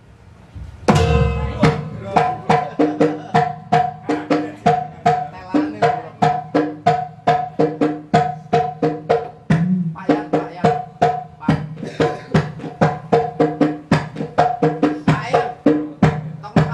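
Banyuwangi kendang drums and a gamelan ensemble start playing about a second in: hand-struck drum strokes in a steady rhythm, about three a second, under short ringing pitched notes.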